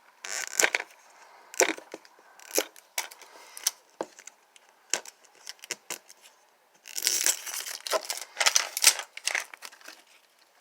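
Plastic packaging being torn and crinkled by hand: irregular sharp crackles and rips, busiest in a run of tearing about seven seconds in.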